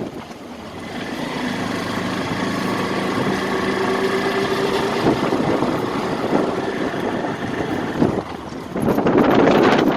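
Engine running steadily, louder near the end.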